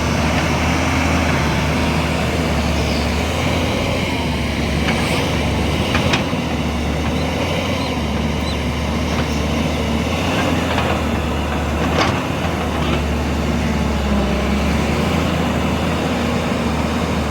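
JCB 205 tracked excavator's diesel engine running steadily under working load, with several short sharp knocks in the middle, such as the bucket striking rock and soil.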